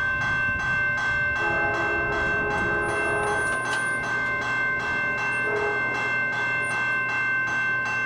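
Railroad crossing warning bell ringing, starting abruptly and striking steadily at about two strokes a second. The crossing has just activated for an approaching train.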